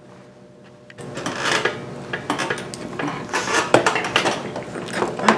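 A white plastic MacBook handled on a wooden table: a run of clattering knocks and sharp taps, starting about a second in.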